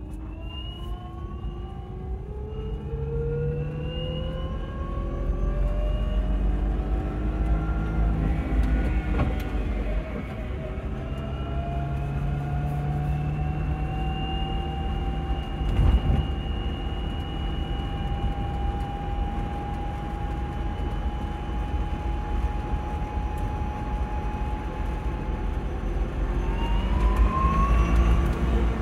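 Hyper 9 electric drive motor and gearbox of an electric-converted 1969 Lotus Europa whining under way, heard from inside the cabin over low road rumble. The whine rises in pitch as the car accelerates, holds at a near-steady, slowly rising pitch while cruising, and climbs again near the end.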